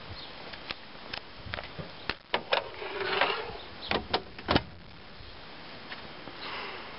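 Scattered clicks and knocks of handling against the car's bodywork, with a short rubbing squeak about three seconds in and the sharpest knock a second and a half later.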